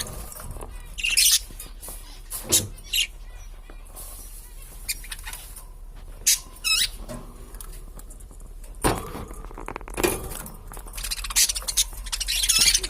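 Pet budgerigars chirping and warbling in scattered short calls and squawks, with a denser run of chatter near the end.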